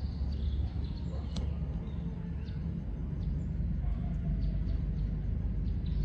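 Outdoor background: a steady low rumble with faint, scattered short chirps.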